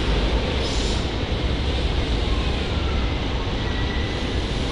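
SEPTA Regional Rail electric commuter train rolling past along the platform as it arrives, a steady low rumble of the cars and wheels. A hiss fades away in the first second, and a faint high whine comes in near the end.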